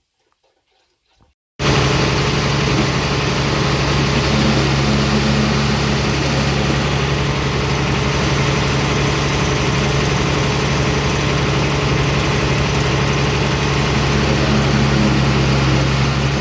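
Near silence, then about a second and a half in a farm tractor's engine comes in suddenly, running loud and steady with an even low hum.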